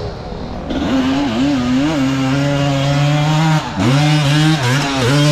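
Engine of an off-road hill-climb machine revving hard under load. The revs climb about a second in and are held high with a wavering pitch, with quick drops and recoveries past the middle and near the end as the throttle is chopped and reopened.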